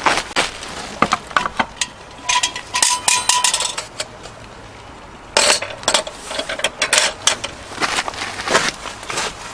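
Cookware and utensils being handled: a scatter of clinks and knocks, with a short metallic ring about two seconds in.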